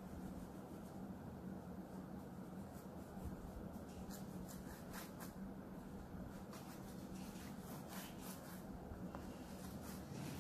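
Faint scratching of an oil pastel rubbed back and forth over paper, blending white over blue, with a steady low hum underneath.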